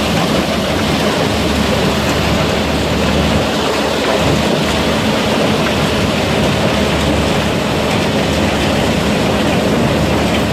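RESTA mobile crushing line running, with the CH2 jaw crusher and its conveyors: a loud, steady, dense clatter of stone over a constant low machine drone.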